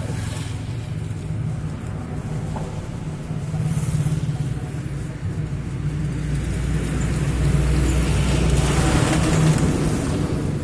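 Steady low engine rumble, growing louder from about six seconds in and easing near the end.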